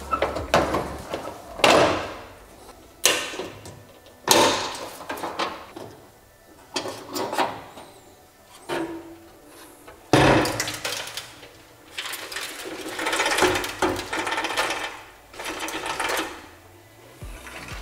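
Sheet-metal clanks and scrapes from a loosened rear body panel of a Nissan 240SX being unbolted and handled. Several sharp metallic knocks come at uneven intervals, a loud one about ten seconds in, with longer stretches of rattling and scraping after it.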